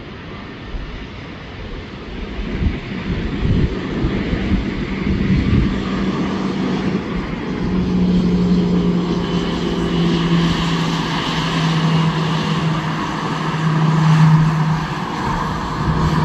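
Airbus A319 airliner's jet engines running as it rolls along the runway, a steady low hum with a higher whine above it, growing louder from about two seconds in as the plane draws nearer.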